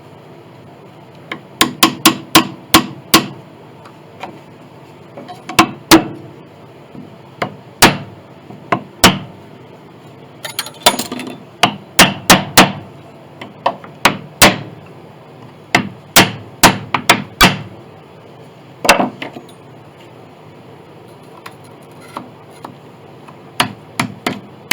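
Hammer tapping in irregular runs of quick, sharp strikes, driving a thin knife blade into a glued joint to work a part loose from an old piano's soundboard.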